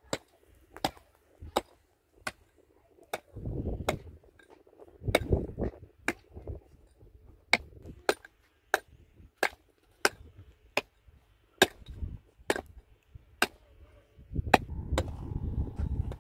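Repeated sharp strikes of a hand tool on a hard surface, a steady knock about every 0.7 seconds, like hammering or chopping. Three spells of low rumbling noise come in between, about 3 and 5 seconds in, and again from about 14 seconds in.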